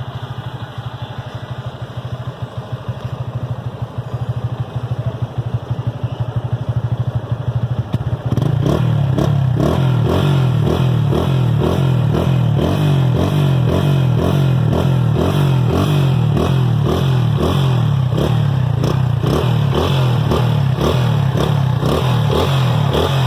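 Yamaha FZ 250 single-cylinder engine running through a custom Akrapovic-style header pipe fitted to the stock muffler. The engine runs steadily at first; about eight seconds in it gets louder and pulses in a regular rhythm of about two surges a second.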